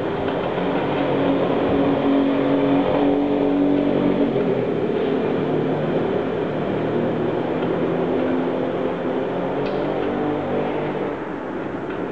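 A vehicle engine running steadily, its pitch shifting up and down over a few seconds at a time.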